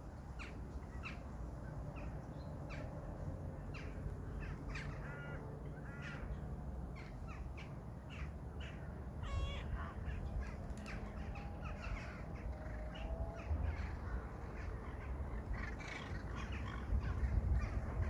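A flock of crows cawing, many short harsh calls overlapping and repeating throughout, over a steady low rumble that swells near the end.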